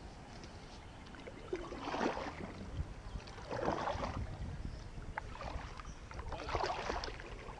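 Double-bladed kayak paddle dipping into flat water with splashing and dripping, a stroke about every second and a half, starting about a second and a half in.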